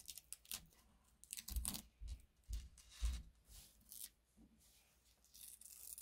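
Adhesive tape being peeled off a wooden board: faint short tearing rips and crackles, then a longer stretch of peeling near the end.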